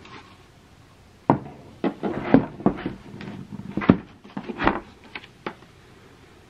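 A string of about ten short knocks and clicks as things are handled against a hard plastic rifle case, spread over a few seconds, then quiet room.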